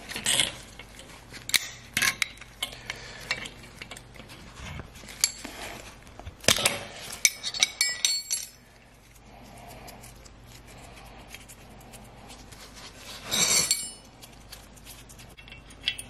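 Steel wrenches clinking and scraping against an oil burner's brass nozzle and electrode assembly as the oil nozzle is loosened and unscrewed. There is a run of sharp metal clinks, some ringing briefly, over the first half, then a quieter stretch, a short rattle a couple of seconds before the end and one last clink.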